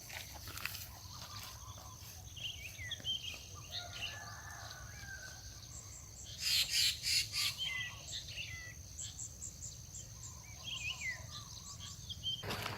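Birds chirping in short, falling calls over a steady high-pitched insect drone. About halfway through comes a brief burst of crackling noise.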